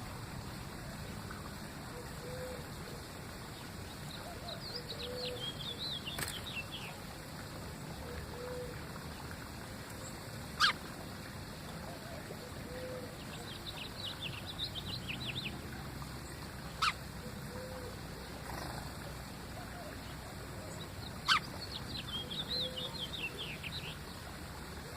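Songbird singing in bursts of rapid high twittering chirps, several times over. A short low note repeats about every two seconds underneath. Four sharp clicks stand out above the rest.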